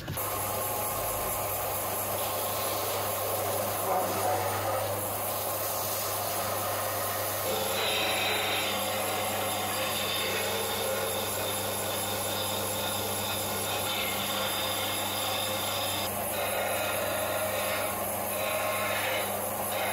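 Combination belt and disc sander running with a steady motor hum while the end of a wooden pickaxe handle is pressed against the sanding disc. The rough grinding of wood on the abrasive swells in two long stretches, from about a third of the way in and again near the end.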